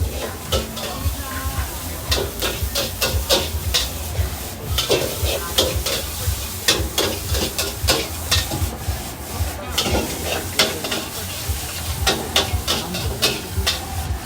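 Busy market ambience: frequent irregular clicks and clatter over a constant low rumble and hiss.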